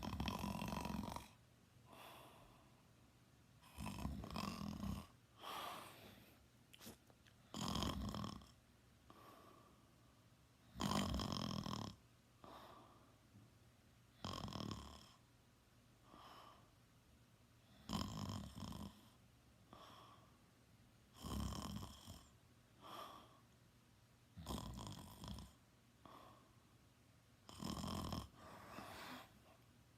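A teenager snoring in sleep: loud snores about every three and a half seconds, each about a second long, with softer breaths in between.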